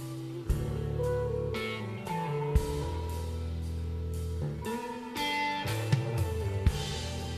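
Live band playing: electric guitar over sustained low bass notes, with a few sharp drum hits.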